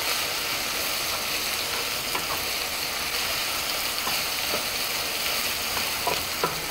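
Sliced onions with ginger and garlic paste frying in hot oil in a nonstick pan: a steady sizzle, the stage where the paste's raw smell is cooked off. A wooden spatula stirs through it, with a few light clicks against the pan.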